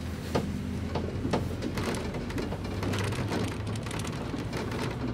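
Ride noise inside a double-decker city bus under way: a steady low engine hum under a haze of road noise, with scattered small clicks and knocks.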